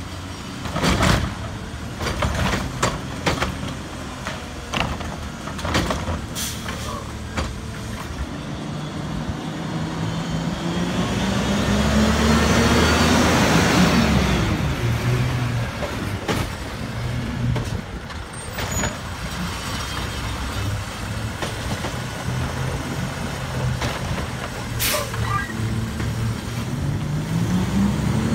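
A CNG Autocar WXLL McNeilus front-loader garbage truck works a trash cart with its Curotto-Can automated arm. Metal clanks and knocks come from the gripper and cart, and the engine rises and falls in pitch as it drives the hydraulics. A loud rush swells and fades about halfway through as the cart is emptied. Near the end the engine pitch climbs as the truck pulls away.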